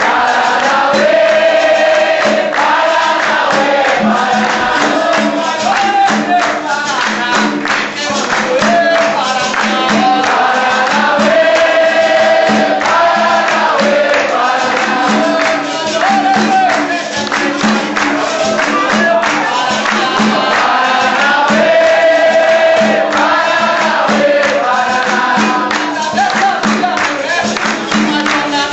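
Capoeira roda music: berimbaus played with percussion in a steady beat, under a group of voices singing a repeating song.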